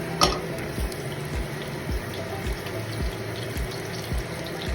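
Oil and beef liver sizzling steadily in a hot frying pan, with a soft low thump about twice a second.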